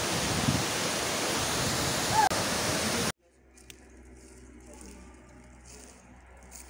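Loud steady rushing noise, even across all pitches, that cuts off suddenly about three seconds in. A much fainter low hum with soft hiss follows.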